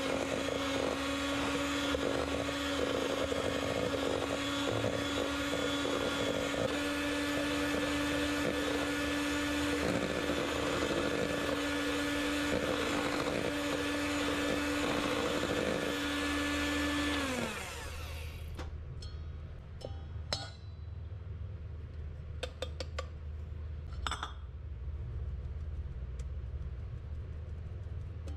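Sharp electric hand mixer running steadily, its beaters whipping softened butter and powdered sugar in a stainless steel bowl. About two-thirds of the way through the motor is switched off and its whine falls away, leaving a few light clicks and taps.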